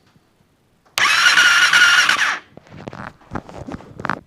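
2008 Suzuki LTR 450's electric starter cranking the engine with a steady whine for about a second and a half, then stopping without the engine firing; a few faint clicks follow. The quad cranks but won't start.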